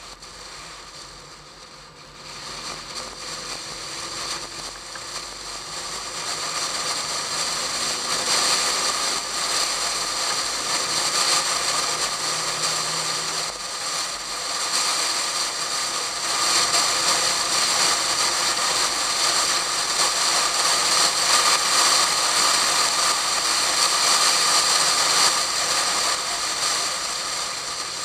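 Heavy wind noise buffeting a camera sealed in a waterproof case and strapped outside a Pontiac Fiero at track speed. It swells over the first several seconds as the car speeds up, then stays loud and rough.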